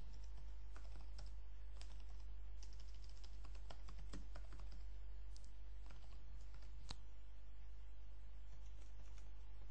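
Typing on a computer keyboard: irregular, scattered keystrokes over a steady low hum.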